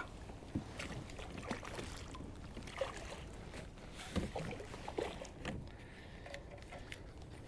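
Light splashing of water beside a kayak and scattered small knocks of rod and landing net against the plastic hull as a hooked fish is brought alongside and netted.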